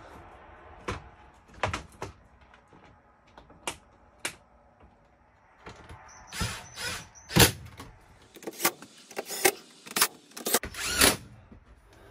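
Plastic ceiling cover of an RV rooftop air conditioner clicking and knocking as it is pushed into place. From about halfway in, a cordless drill drives the cover's screws in several short whirring runs.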